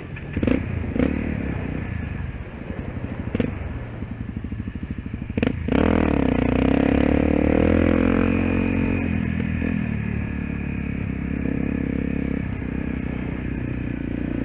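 Single-cylinder Honda dirt bike engine running while riding over rough grass, with a few knocks and rattles from bumps in the first seconds. About five and a half seconds in the throttle opens and the engine revs up, its pitch rising and then easing back to a steadier run.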